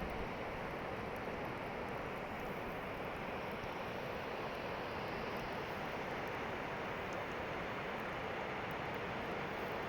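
Steady, even rushing noise with no distinct events, like outdoor wind or water at the shore.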